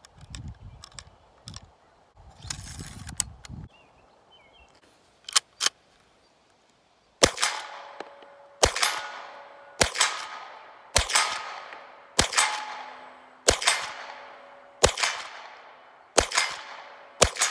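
Browning Micro Midas lever-action .22 rifle: two sharp clicks from the action about five seconds in, then nine shots fired about 1.3 s apart, each crack followed by a ringing echo that dies away.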